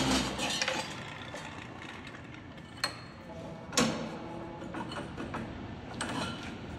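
Brobo Super 300 cold chop saw finishing a cut through steel tube: the loud cutting sound falls away just after the start. Then come a few sharp metal clanks as the saw head is raised and the cut tube and vise are handled, the loudest near four seconds in.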